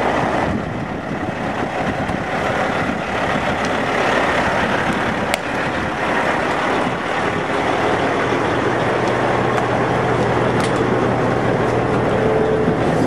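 Semi truck's diesel engine running steadily, heard close beside the tractor and trailer, with a sharp click about five seconds in.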